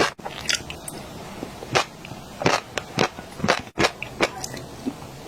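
A person biting and chewing fish roe close to the microphone, giving a string of crisp, irregular crunches.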